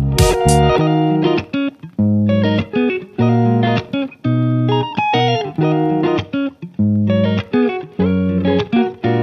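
Background music: plucked guitar phrases over a bass line, with notes starting and stopping every half second or so.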